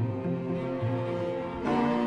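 Cello ensemble of five cellos bowing sustained notes together. A louder chord comes in near the end.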